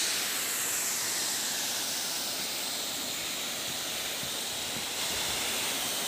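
Water falling and rushing at a small waterfall with a low flow, heard as a steady, even hiss.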